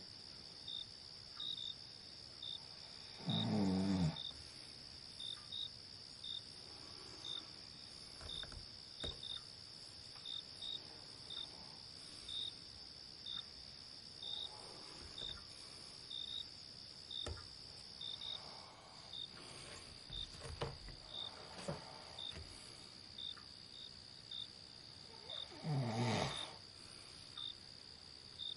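A person snoring, with two loud, deep snores about three seconds in and near the end and fainter breaths between. Behind them crickets chirp steadily, about one and a half chirps a second, over a steady high insect hum that drops slightly in pitch a little past the middle.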